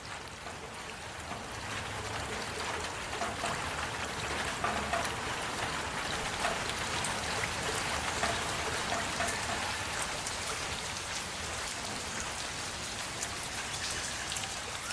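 Heavy rain falling steadily, with individual drops ticking through a dense hiss; it swells up over the first couple of seconds, then holds level.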